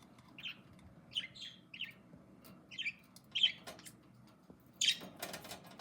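A two-month-old budgie chirping in short, separate calls, about one every half second to second. There are a few sharp clicks between the calls and a brief louder noisy burst about five seconds in.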